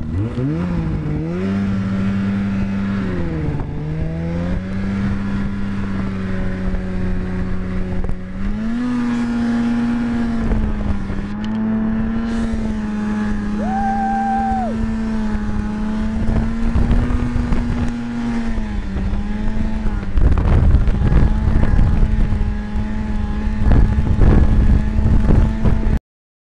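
Snowmobile engine pulling away and running at speed: its pitch climbs at the start, dips briefly a few seconds in, then holds mostly steady with a step up about eight seconds in. Over the last several seconds it turns louder and rougher before cutting off suddenly.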